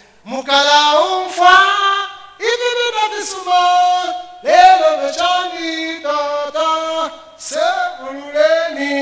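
A single voice singing unaccompanied into a microphone: a slow chorus of held notes that slide between pitches, in short phrases with brief breaths between them.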